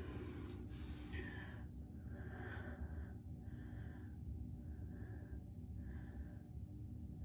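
Heavy breathing close to the microphone: a louder breath about a second in, then short, evenly spaced breaths about once a second.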